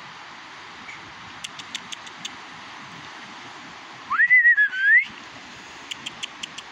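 A short whistle about four seconds in, under a second long: it glides up, wavers, dips and rises again at the end. Before and after it come two quick runs of faint high ticks, over steady background noise.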